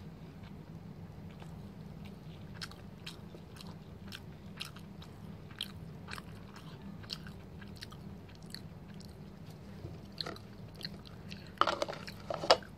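A person chewing food close to the microphone: soft wet mouth clicks and small crunches every half second or so, over a steady low hum. A few louder sharp clicks come about a second before the end.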